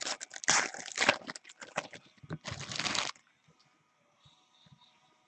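Foil baseball-card pack wrapper being torn open and crinkled by hand, a dense crackle that stops about three seconds in.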